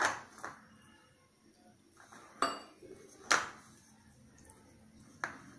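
Kitchenware clinking and knocking about five times, each knock with a short ring: a steel tumbler and a plastic mixing bowl handled against each other and the stone counter while flour is mixed in the bowl by hand.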